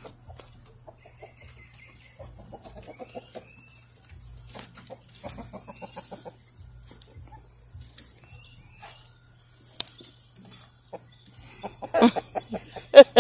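Chickens clucking softly in short rapid runs, then a louder burst of quick clucking near the end.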